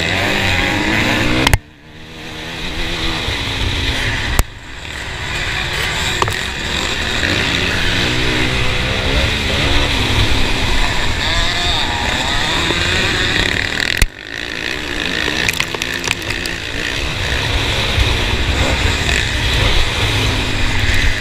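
Motocross bike engines running hard on the track, heard from on board, the revs rising and falling. Three times the sound cuts off sharply with a click and then builds back up.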